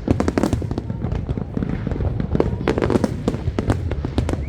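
Fireworks display: a rapid, irregular string of bangs and crackles over a steady low rumble.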